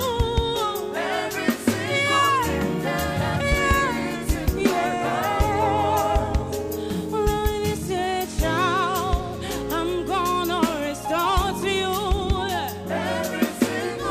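Gospel song performed live: a lead singer holding long, wavering vocal runs over a band with keyboard and drums, with backing singers.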